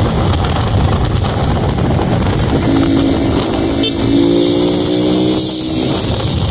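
Honda Pop 110i's small single-cylinder engine running as the bike is ridden, its note rising gradually through the middle. Heavy wind rush on the microphone.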